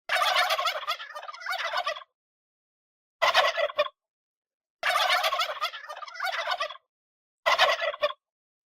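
Domestic turkey tom gobbling: a long rattling gobble, a short one, then the pair again, with dead silence between the calls.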